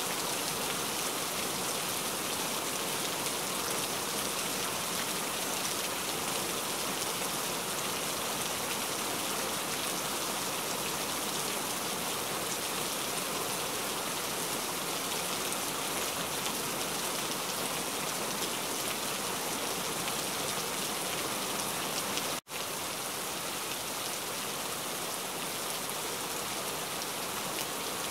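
Heavy rain falling steadily, an even hiss of drops on surfaces. The sound cuts out for a split second about two-thirds of the way through, then carries on unchanged.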